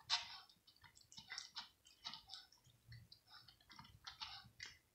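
Cat eating cooked mackerel in gravy from a plastic plate: an irregular string of small smacking, clicking chews, several a second, the loudest right at the start.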